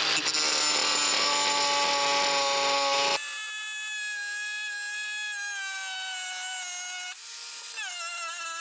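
Cordless angle grinder running against the truck's bumper, throwing sparks: a harsh, loud grinding noise for about the first three seconds, then abruptly a thinner, high motor whine whose pitch slowly sags and shifts again near the end.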